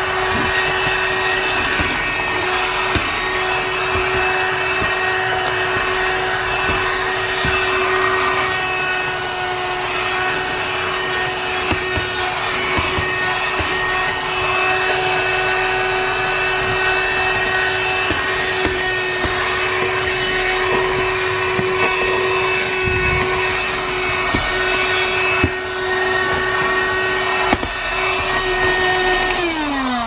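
FOXNOVO 6000Pa wet/dry 12-volt car vacuum running steadily with a high motor whine as its nozzle works the floor carpet, with occasional clicks. Near the end it is switched off and the motor winds down in a falling whine.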